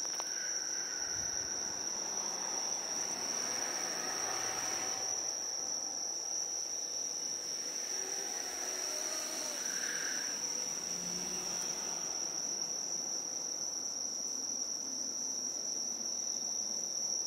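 Insects singing in the night: one steady, unbroken high-pitched chirring.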